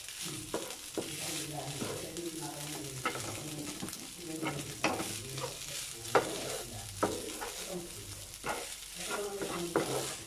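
Fried rice sizzling in a nonstick frying pan while a wooden spatula stirs and tosses it, with irregular sharp taps and scrapes of the spatula against the pan, the loudest about six seconds in.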